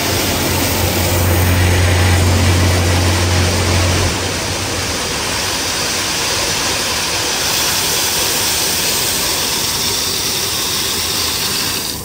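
Concrete batching plant machinery running, a steady loud mechanical noise. A strong low hum under it cuts out about four seconds in.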